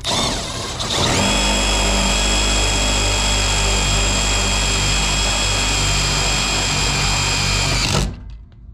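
Power drill running under load while the new control is mounted: it spins up over about the first second, holds a steady high speed, then stops abruptly about eight seconds in.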